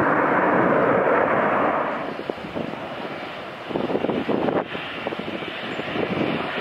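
Boeing 737 jet engines: a loud rush from an airliner moving on the runway that fades after about two seconds, then the quieter, steadier sound of another 737 on final approach.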